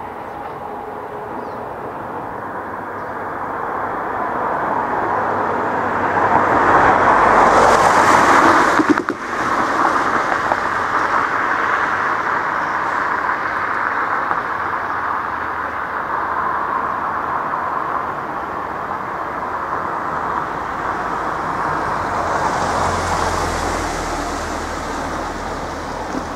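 Street noise with road vehicles driving past. The first is loudest about eight seconds in, and the second is a car passing near the end with a low engine hum and tyre hiss.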